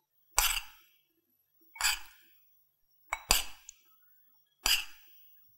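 Metal spoon clinking against the bowls as flour is scooped out and dropped in, four short clinks about a second and a half apart, the third one a quick double tap.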